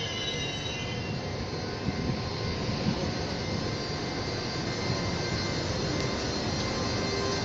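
Carriages of an electric suburban train rolling slowly past along the platform as the train pulls in, a steady rumbling noise with a few light knocks about two to three seconds in.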